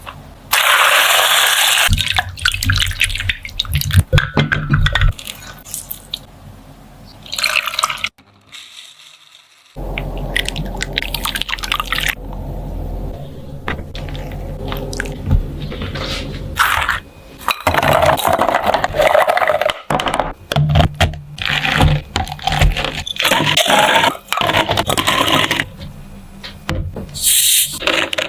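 Kitchen sink sounds: running tap water splashing as food or utensils are rinsed, with scattered clinks of metal or dishes. It comes in separate stretches, with a short quiet break about eight seconds in.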